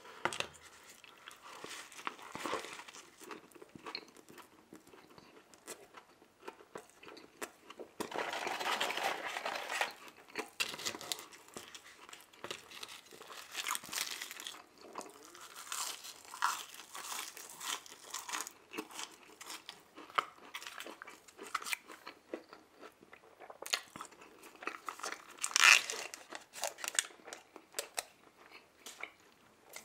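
Close-up eating sounds: a person biting and chewing a crispy fried chicken sandwich and fries, with wet clicking mouth sounds and bursts of crunching. A longer burst of crunching comes about eight seconds in, and the sharpest crunch comes a few seconds before the end.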